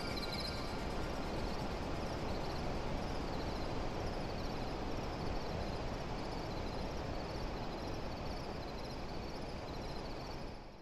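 A steady hiss-like ambient texture with a faint high chirp repeating at regular intervals, part of an electronic album's audio between musical passages. It fades out near the end.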